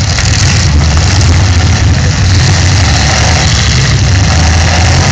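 Demolition derby cars' engines running and idling: loud, steady low engine noise with no break.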